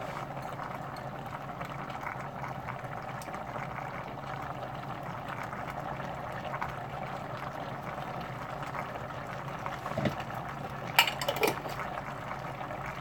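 Steady hiss of chicken and vegetables cooking in a pan on the stove, with a low hum under it. A few spoon clinks come near the end as salsa is scooped from the jar.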